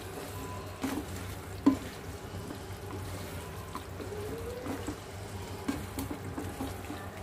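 Wooden spatula stirring chicken pieces through a thick, simmering sauce in a non-stick pan, with wet squelching and light sizzling. A few sharp knocks of the spatula on the pan, the loudest about a second and a half in.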